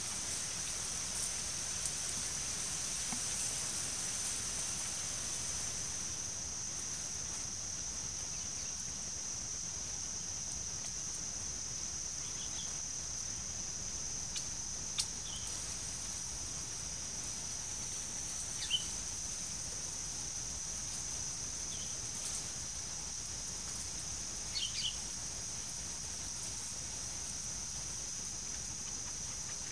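Steady, high-pitched insect chirring over a faint low rumble, with a few short high chirps scattered through.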